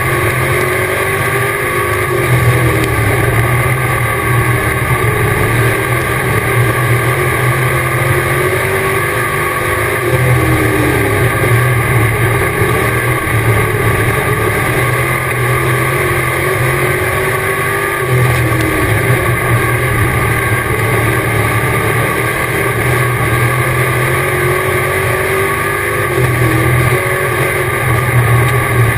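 Dirt track race car's engine heard on board at racing speed, loud and continuous. Its pitch drops and climbs again about every eight seconds as the car lifts for the turns and accelerates down the straights.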